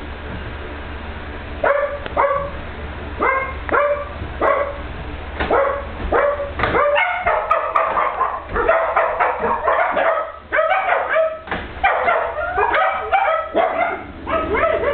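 An animal yapping: short, sharp pitched calls starting about two seconds in, at first about two a second, then coming faster and overlapping from about seven seconds on. A low steady hum runs underneath.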